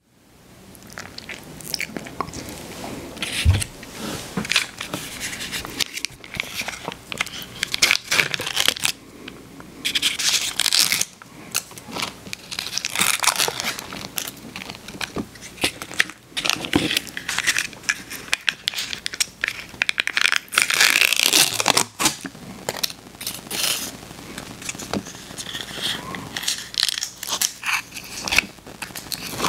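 Sealed lids being peeled off small plastic dipping-sauce cups, in bursts of crinkling and tearing with small clicks and taps as the cups are handled.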